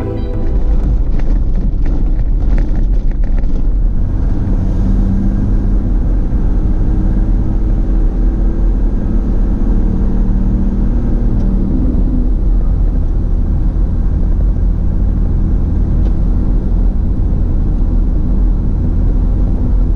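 A Toyota Land Cruiser 4x4 driving off-road, heard as a loud, steady low rumble of engine and tyres. There are some clicks and rattles in the first few seconds.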